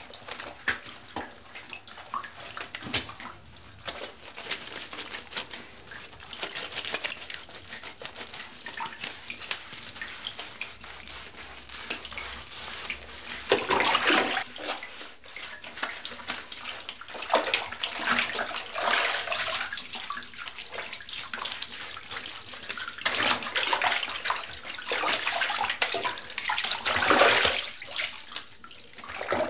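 Water sloshing and splashing in a bathtub as a person bathes and washes, in irregular splashes, with the loudest surges about halfway through and again near the end.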